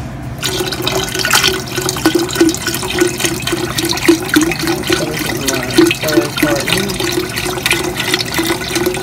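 Chicken broth poured from a carton into a pot of soup, a continuous splashing stream into the liquid that starts about half a second in.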